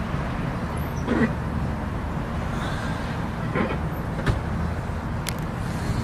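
Steady low rumble of road traffic, with a few brief faint sounds about a second in and near the middle.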